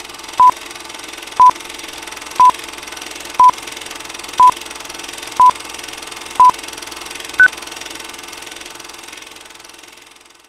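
Film-leader countdown sound effect: a short beep once a second at the same pitch, seven times, then a final beep higher in pitch, over a steady hiss that fades out near the end.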